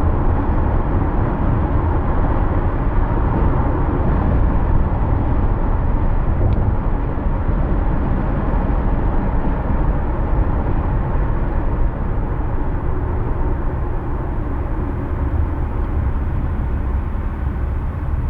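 Steady road noise of a car driving: a continuous low rumble of tyres and engine. It eases a little about two-thirds of the way through.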